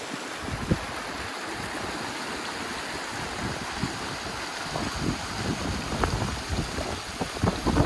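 Shallow rocky mountain stream rushing and splashing over stones, a steady wash of water. From about five seconds in, low gusty rumbles of wind on the microphone grow louder.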